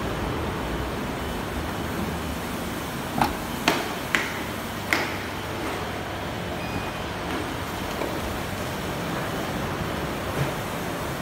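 Aftermarket electric tailgate lift closing the hatch of a Mazda 5, ending in four sharp clicks about three to five seconds in as the latch and soft-close lock pull it shut.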